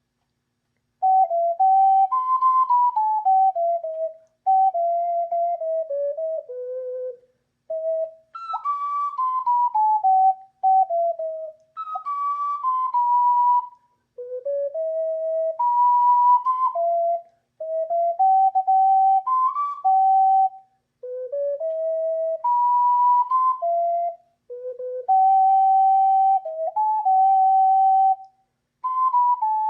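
Ocarina playing a slow melody, one clear note at a time, in phrases of a few seconds with short pauses for breath between them; it starts about a second in.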